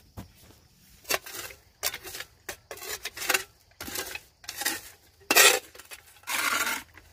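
Small metal shovel scraping and scooping charcoal and ash out of a stone fire ring: a string of about nine short scrapes and clinks, the loudest about five seconds in and a longer scrape near the end.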